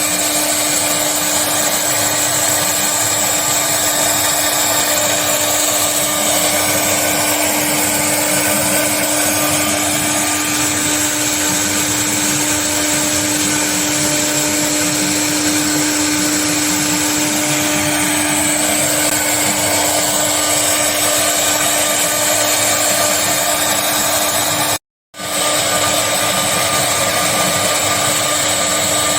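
CNC wood-carving router at work: the spindle runs with a steady whine over continuous cutting noise. The sound cuts out for a moment about 25 seconds in.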